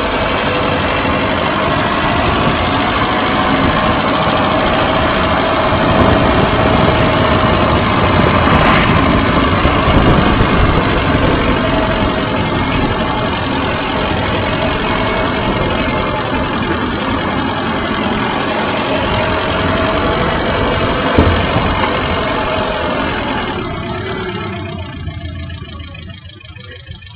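Steady rumble and rattle of a bicycle-mounted camera rolling over rough asphalt, mixed with wind noise, with one sharp knock about 21 seconds in. The noise fades over the last few seconds.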